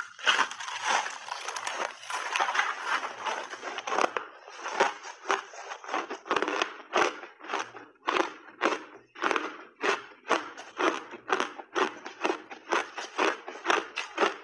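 Refrozen crushed block ice crunching between the teeth. A big bite gives a dense run of crackling for the first few seconds, then it settles into steady crunchy chewing at about three crunches a second.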